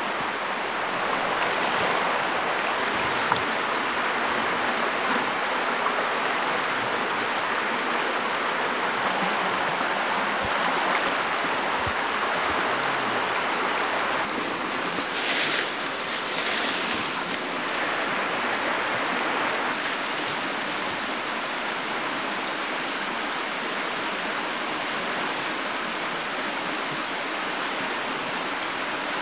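Steady rushing of flowing water from a stream, with a few faint knocks of wooden logs and a brief rustle about halfway through.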